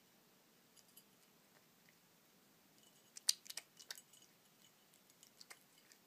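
A cat chewing dry kibble, with a quick run of sharp crunches about three seconds in and a few more near the end.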